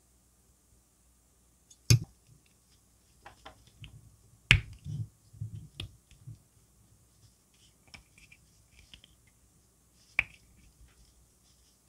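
Small plastic model-car wheel parts handled and pressed together by hand: three sharp plastic clicks, about two seconds in, about four and a half seconds in and near the end, with softer tapping and rubbing of the parts between the first two.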